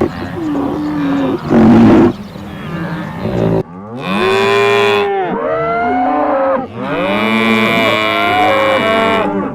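Cattle mooing: several long, overlapping calls that rise and fall in pitch, starting about four seconds in. Before them comes a noisier stretch with a short loud burst about a second and a half in.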